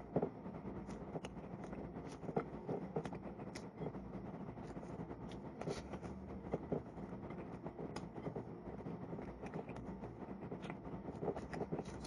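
Eating at a table: scattered small clicks and scrapes of fingers picking food off a ceramic plate, and chewing, over a steady low room hum.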